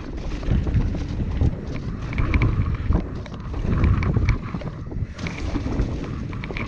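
Mountain bike riding a dirt trail: wind buffeting the microphone over the rumble of tyres on the ground, with scattered clicks and rattles from the bike, swelling and easing as the speed changes.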